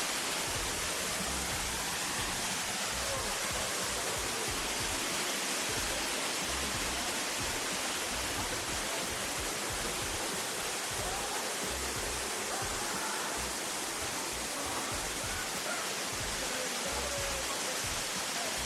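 Waterfall rushing steadily: an even roar of falling water with no breaks.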